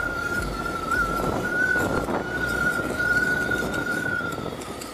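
A Bajaj Pulsar 150's single-cylinder engine running as the motorcycle rides along, heard through a camera's built-in mic with wind rumbling over it. A steady high whine, wavering slightly in pitch, runs through it.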